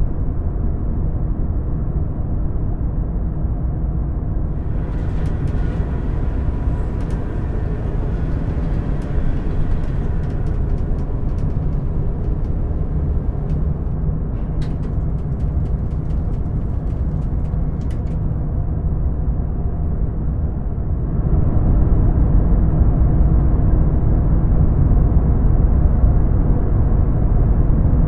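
A steady low rumbling drone with scattered sharp clicks and ticks between about 5 and 18 seconds in. The rumble grows louder about 21 seconds in.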